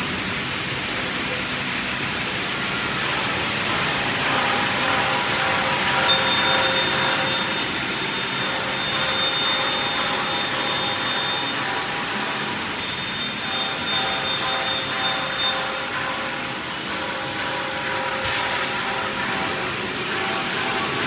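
CNC panel saw running with a steady noise. A high whine joins it from about six seconds in until about sixteen seconds.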